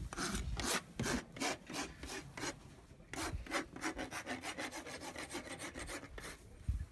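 Farrier's hoof rasp filing a horse's hoof in quick back-and-forth strokes, about four to five a second, with a brief pause about three seconds in.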